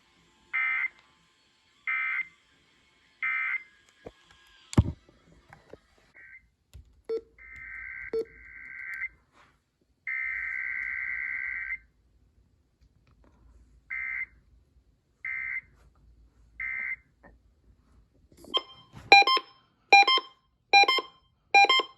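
Emergency Alert System digital data bursts (SAME codes): three short, buzzy bursts about 1.3 s apart, two longer bursts in the middle, then three more short bursts. Near the end comes a quick run of sharp, clicky tone pulses.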